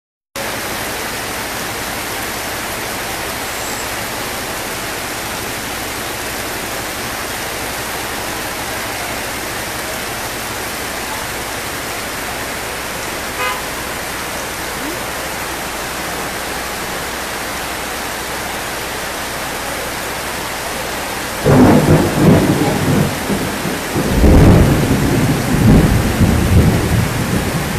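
Heavy rain falling steadily. About 21 seconds in, loud thunder rumbles in, and it rumbles again, louder, a few seconds later.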